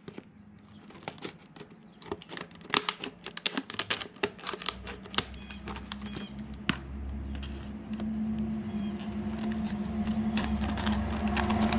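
Lockbox packaging being opened by hand: a quick, irregular run of crinkling clicks and tearing. A low steady hum grows louder through the second half.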